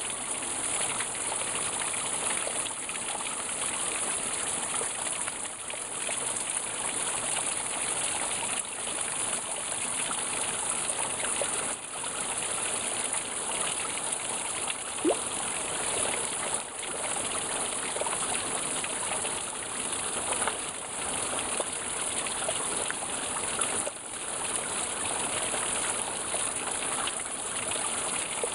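Water running and trickling steadily at a frozen waterfall, with one brief louder sound about halfway through.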